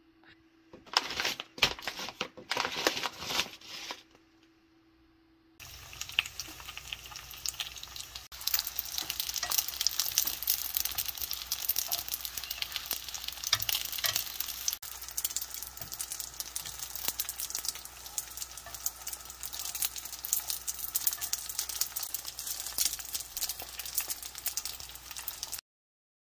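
Daegu-style flat dumplings frying in oil in a nonstick pan, sizzling with many small pops. The sizzle starts after a few seconds of irregular clatter, grows louder soon after, and cuts off suddenly near the end.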